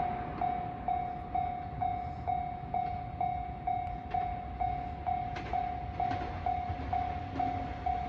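Japanese level-crossing alarm ringing its electronic 'kan-kan' tone, about two dings a second, over a steady low rumble. It is the warning that a train is approaching the crossing.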